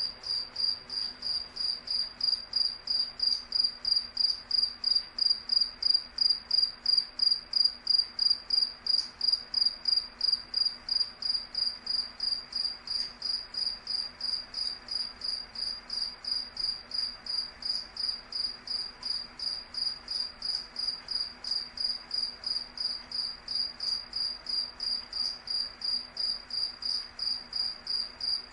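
A cricket chirping in a steady, even rhythm, about three chirps a second, each a high pure tone, with a faint low hum underneath.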